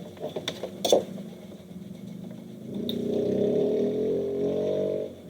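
A few clicks, then desktop PC fans spinning up at power-on: a loud hum rising slightly in pitch for about two seconds, which cuts off suddenly near the end.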